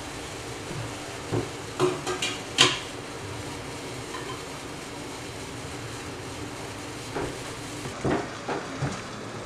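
Stainless steel clinks and clanks as a perforated steamer basket is set into a steel pot, its wire handle knocking against the rim. There is a quick run of sharp metal knocks in the first few seconds, the loudest about two and a half seconds in, and a few more near the end.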